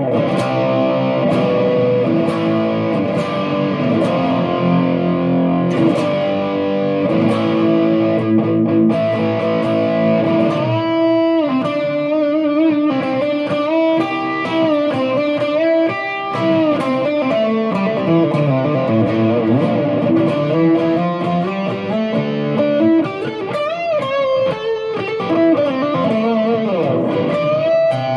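Electric guitar played through a NUX Plexi Crunch overdrive pedal switched on, giving a crunchy, Marshall-Plexi-style distorted tone. It rings out held chords for the first several seconds, then plays lead lines with string bends and vibrato.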